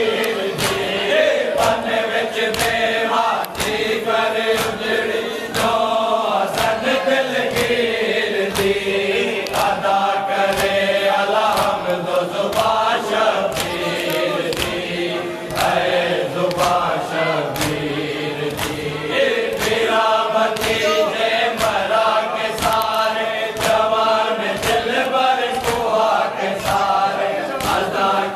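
Men's voices chanting a noha, a Shia lament for Muharram, in unison, over sharp rhythmic slaps about twice a second from matam, the ritual chest-beating.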